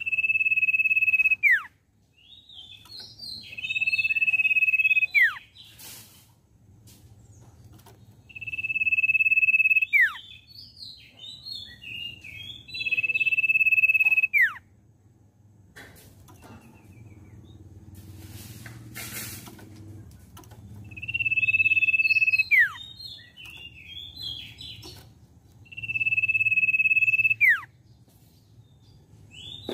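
Young common iora singing: long, level whistles that each end in a sharp downward drop, about six in turn, with scratchy chattering notes between them. Two brief noisy bursts come in along the way, one near the start and one about two-thirds through.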